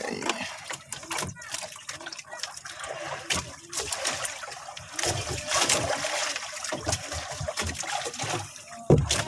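Water splashing and trickling unevenly around a small fishing boat.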